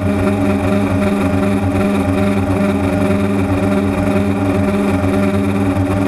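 DJI Phantom quadcopter's motors and propellers running, an even drone hum that holds one pitch.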